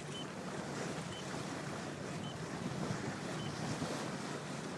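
Wind buffeting the microphone and water rushing along a sailboat's hull as it motorsails, with the auxiliary engine running steadily underneath. Four short high beeps sound about a second apart.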